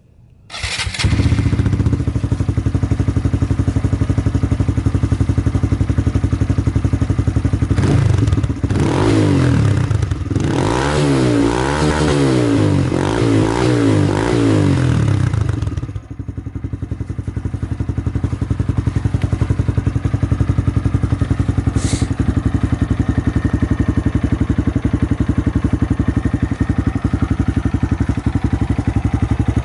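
Honda Grom 125's single-cylinder four-stroke engine, fitted with a Two Brothers S1R aftermarket exhaust, starting about a second in and settling into a steady idle. In the middle it is revved up and down several times in a row for several seconds, then drops back to idle.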